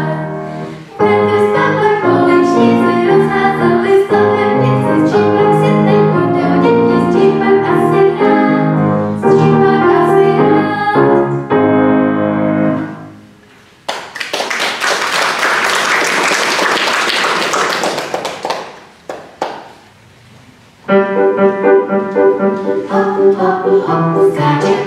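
A young vocal quartet sings with grand piano accompaniment; the song ends about 13 seconds in and the audience applauds for about five seconds. After a short pause, singing with piano starts again about 21 seconds in.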